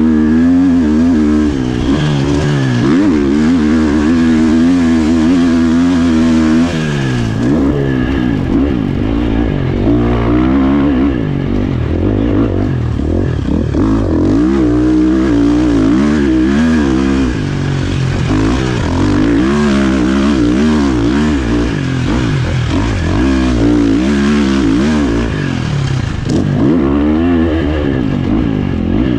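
Husqvarna FC 350 four-stroke single-cylinder motocross bike engine, heard from a helmet-mounted camera as the rider works the throttle over a rough sand track. The revs rise and fall over and over, with short dips where the throttle is rolled off.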